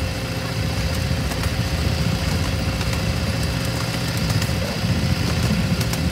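Miniature-railway diesel locomotive running steadily as it hauls the train, a low engine rumble with a steady hum over it and a few faint clicks.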